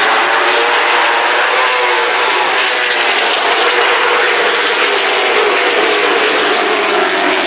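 A pack of late model stock cars with V8 engines running around the track together: a loud, steady engine drone made of several pitches that rise and fall gently as the cars move through the turns.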